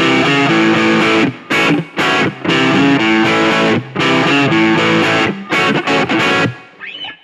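Electric guitar with Seymour Duncan P-Rail pickups played with distortion through a NUX Mighty Lite BT amp: loud chords broken by several short stops. The playing stops and rings away near the end.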